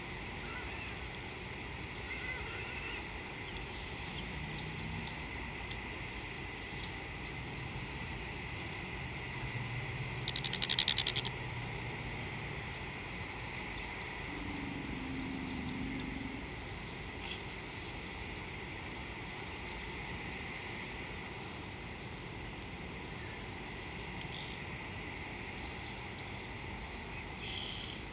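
Chorus of small calling creatures in the bush: a short high chirp repeating about once or twice a second over a steady high drone, with a brief, louder buzzy trill about ten seconds in.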